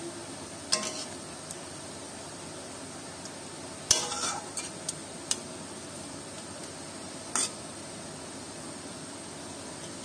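A metal spatula stirring a thick vegetable curry in an iron wok, with a few sharp scrapes and knocks against the pan. The loudest burst of scraping comes about four seconds in.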